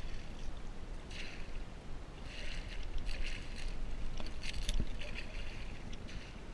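Water splashing in several short surges as a hooked speckled trout thrashes at the surface and is scooped into a landing net beside the boat, over a steady low rumble.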